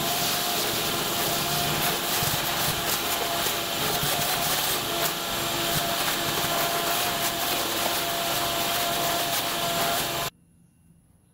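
Shop vac running steadily, sucking ash out of the bottom of a Big Green Egg ceramic cooker through its corrugated hose. The suction noise carries a steady whine, with scattered clicks of debris going up the hose, and it cuts off suddenly near the end.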